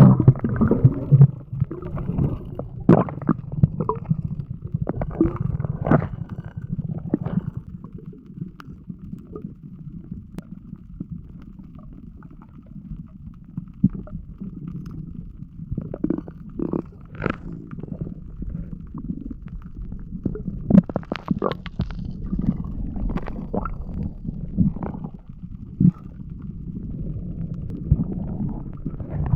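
Muffled underwater rumble of moving water, with scattered short clicks and knocks throughout.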